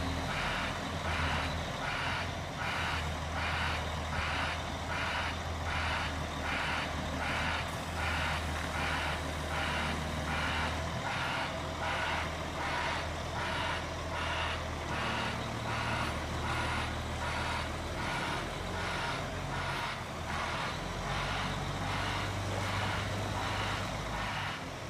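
Caterpillar 16H motor grader's reversing alarm beeping steadily, a bit more than once a second, over the low drone of its diesel engine.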